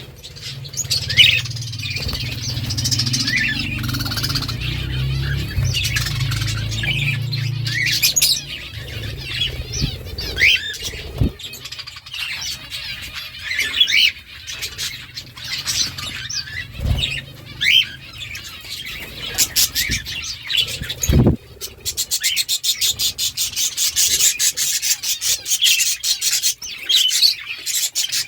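Budgerigars chirping and chattering, with many short sharp calls throughout. A low hum sits under the first several seconds and a few sharp knocks come in the middle. Over the last several seconds the birds break into a fast, dense run of clicking chatter.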